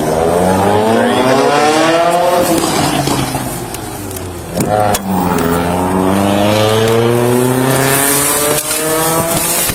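Car with a loud exhaust accelerating hard away: the engine's pitch climbs through one gear, drops off about a quarter of the way in, then climbs again through the next gear until near the end.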